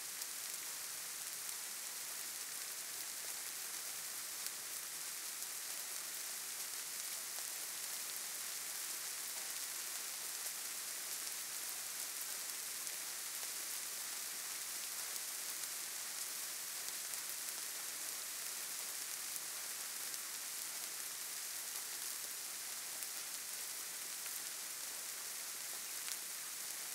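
A steady, even hiss, strongest in the high treble, with no changes and nothing else standing out.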